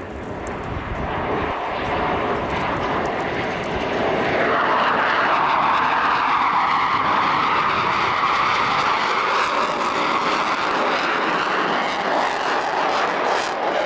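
Jet noise of JASDF F-15 Eagle twin-engine fighters flying past in close formation. It swells over the first four seconds, then stays loud and steady.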